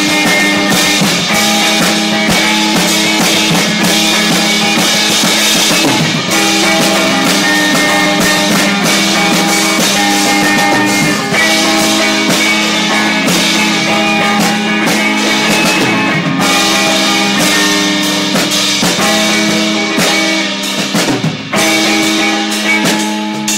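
Midwest emo band recording: electric guitars over a drum kit, playing loudly and steadily, with a short drop in level about 21 seconds in.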